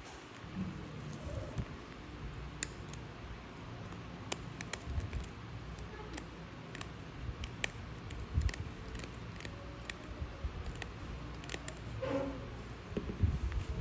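A small metal hand instrument tipping and snipping at a crusted model toe, giving many sharp, irregular little clicks. Soft handling rustle near the end.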